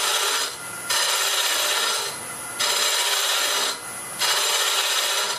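Jamieson boring-bar cutter hollowing the inside of a mesquite vessel spinning on a wood lathe: a scraping cut in strokes of about a second, four in all, with short quieter pauses between as the cutter is eased in a little at a time.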